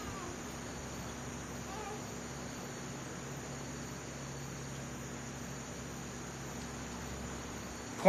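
Steady chorus of night insects, like crickets, with a low steady hum beneath it.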